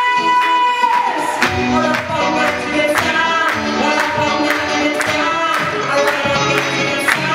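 Live band with electric guitar, saxophone and singing, playing a song: a long held note in the first second, then the full band on a steady beat of about two strokes a second.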